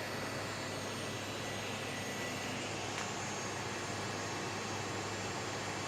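Elegoo OrangeStorm Giga 3D printer running its input-shaping calibration, the print head vibrating back and forth along the X axis: a steady hum with the vibration carried through the metal frame.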